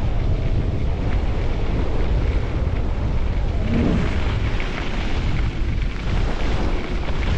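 Wind buffeting the microphone of a skier on a fast downhill run: a steady, loud low rumble with rushing hiss above it.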